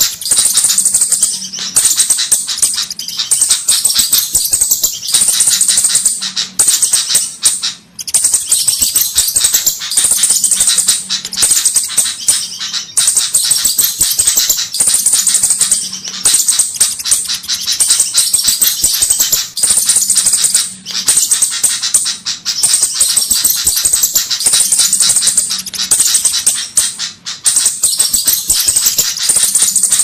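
Bird-lure recording of flowerpecker calls: high-pitched, rapid ticking chatter, looped in bursts of a few seconds with short breaks between them.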